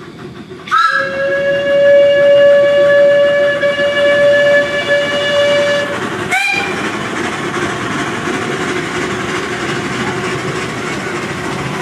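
Miniature-railway steam locomotive whistle: one long, steady blast of about five seconds, then a short second blast, as the train approaches. After that comes the steady running noise of the oncoming train.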